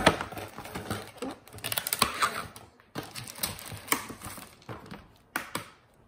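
Cardboard packaging being handled and pulled apart: an irregular run of scrapes, taps and clicks, easing off into a lull near the end.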